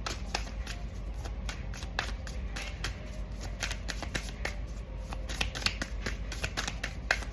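A deck of spirit-animal oracle cards being shuffled by hand: a rapid, irregular run of light card-edge clicks and flutters, several a second, over a steady low hum.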